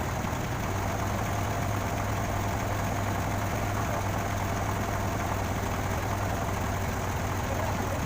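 Heavy engine idling steadily with a strong, even low hum, plausibly the engine of the crane truck under repair.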